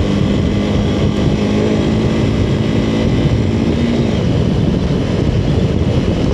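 Motorcycle engine running at a steady speed under the rider, with wind and rumble on the helmet mic. About four seconds in, the engine note drops away as the throttle eases, leaving wind and rough-ground noise.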